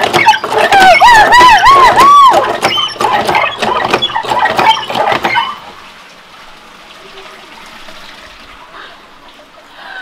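Red cast-iron hand pumps being worked fast: each handle stroke brings a squeak that rises and falls, about three a second, with clanks of the handles. This lasts about five seconds, then gives way to a softer steady hiss of water running down wooden troughs.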